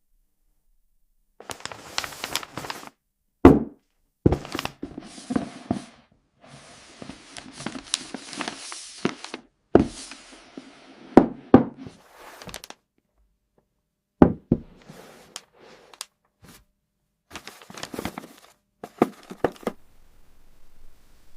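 A box and its packaging being handled and opened: sharp knocks and thunks mixed with stretches of rustling, scraping noise. The sounds come in short pieces with abrupt dead silences between them.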